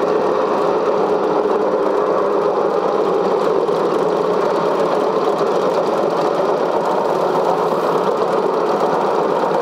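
Cine film projector running with a steady mechanical whirr and clatter.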